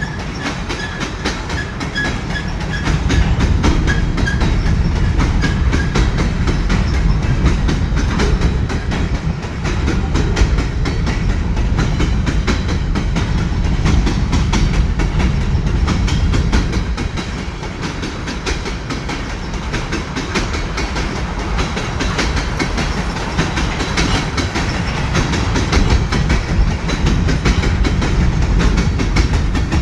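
Canadian National train cars rolling past, wheels clattering in a steady clickety-clack over the rail, loud and continuous with a slight dip in the middle.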